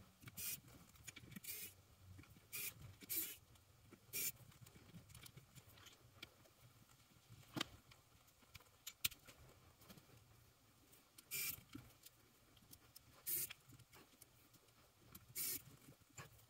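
Faint handling noise of a small screwdriver and metal parts: about ten short, irregularly spaced clicks and scrapes as screws are driven to fix a prop adapter onto a drone motor.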